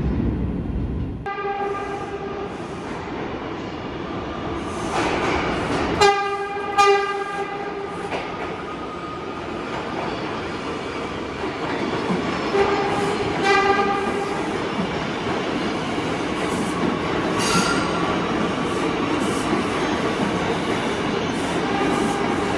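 New York City subway train running through a station, with the steady rattle and rumble of the cars. Its horn sounds several times, loudest in two short blasts about six and seven seconds in, with shorter horn notes later.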